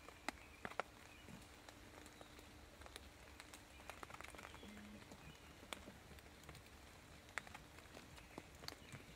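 Near silence broken by faint, scattered sharp ticks and taps on dry leaf litter, the two strongest less than a second in.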